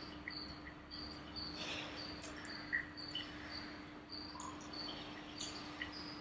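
Quiet room tone: a faint high chirp repeating about three times a second over a steady low hum, with a few faint ticks.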